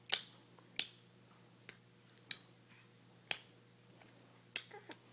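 A baby clicking its tongue: about eight sharp, separate clicks at an uneven pace, the last two with a brief bit of voice.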